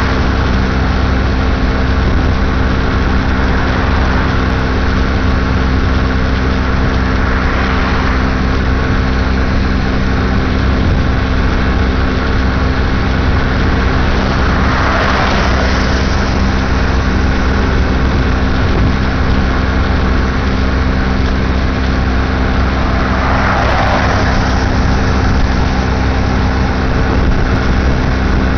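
2006 Baja SC50 moped's small engine running at a steady pitch while cruising. Three rushing swells rise and fade over it, about a quarter, half and four-fifths of the way through, as vehicles pass.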